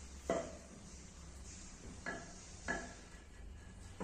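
Three short metallic clinks, each with a brief ring: one just after the start, then two more close together past the middle, as metal bed-frame fittings are handled during assembly.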